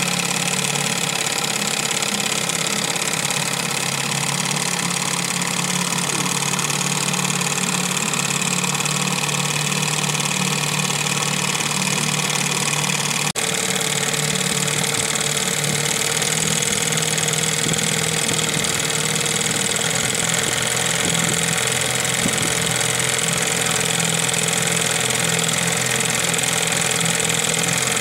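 Evinrude Fisherman two-stroke outboard motor running steadily, with a brief dropout about halfway through.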